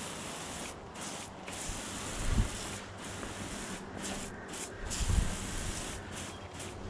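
Pressure washer wand spraying water onto brick, a steady hiss that cuts out briefly several times as the trigger is let off. Two dull low thumps come about two and a half and five seconds in.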